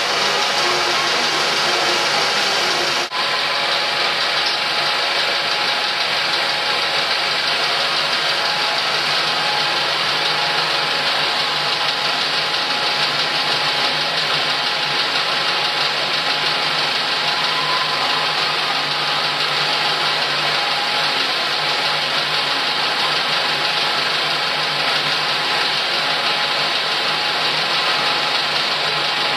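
35mm film projection room machinery running: Cinemeccanica Vic 5 film projectors and a cakestand platter system feeding film, a loud steady mechanical whirr with a steady whine. The sound drops out very briefly about three seconds in.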